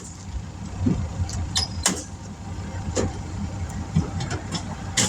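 A motor vehicle engine running steadily, with a few sharp knocks and clanks over it about two, three and five seconds in.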